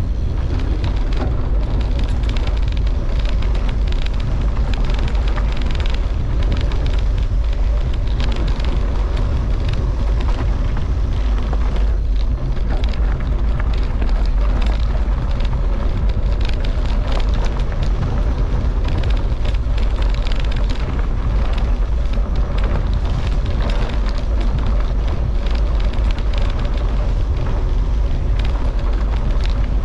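Wind buffeting the microphone of a mountain bike descending fast, about 20 mph, over a rough gravel and dirt track, with the tyres rumbling and the bike clattering and rattling over the stones.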